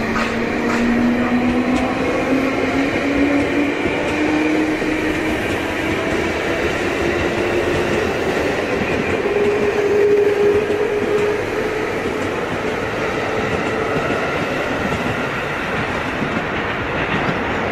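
JR 223 series electric train accelerating, its motor whine rising steadily in pitch for about ten seconds over the rumble and clatter of wheels on the rails.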